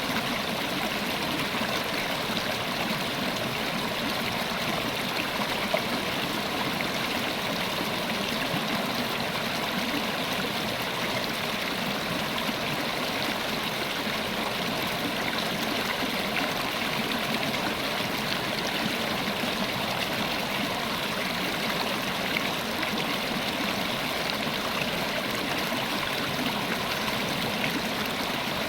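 River water flowing and babbling over rocks, a steady even rush without breaks.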